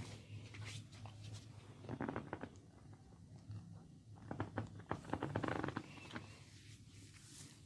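Hands working an oil-soaked scalp and hair: bursts of quick, wet crackling and rubbing, about two seconds in and again from about four to six seconds, over a low steady hum.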